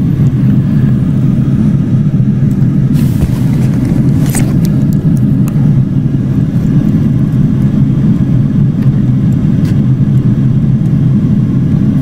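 A steady low mechanical drone, even in level throughout, with a few light clicks about three and four seconds in.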